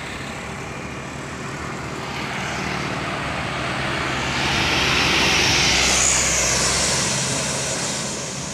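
A truck passing close by, its engine hum and tyre noise swelling to a peak about six seconds in and then fading as it goes past.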